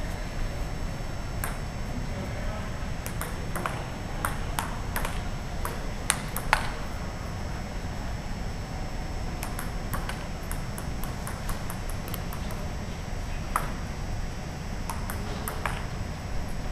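Table tennis ball clicking off paddles and the table in quick back-and-forth rallies, with short pauses between points. The clicks are sharp and irregular, two of the loudest coming about six seconds in, over a steady low background rumble.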